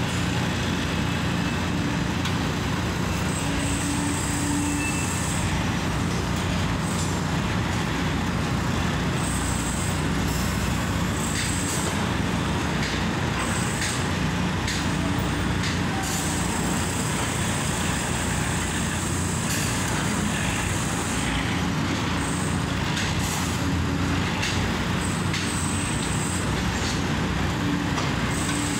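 Steady construction-site machinery noise with a low engine hum, and a high hiss that comes and goes every few seconds along with a few faint clicks.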